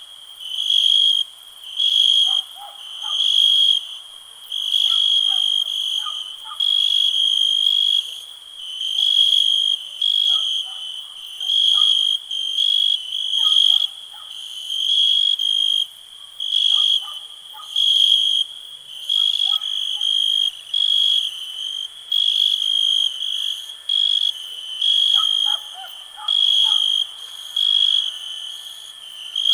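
A cricket chirping in a steady rhythm: high, even-pitched chirps about once a second, each lasting about half a second. Fainter, lower short calls come in small clusters now and then underneath.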